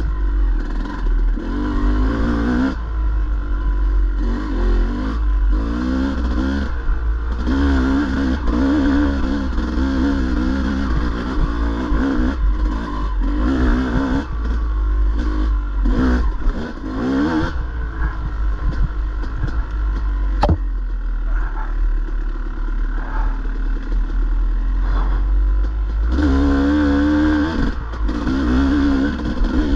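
Dirt bike engine revving up and down over and over as the throttle is worked, under a heavy low rumble. It settles to a lower, steadier note for several seconds past the middle, with one sharp knock, then picks up again near the end.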